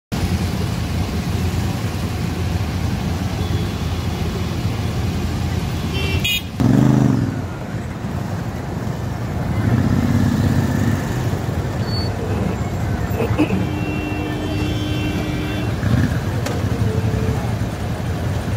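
Royal Enfield Shotgun 650 parallel-twin engines idling in stopped traffic, with a steady low rumble. A brief louder burst comes about six and a half seconds in. A vehicle horn sounds for a couple of seconds in the second half.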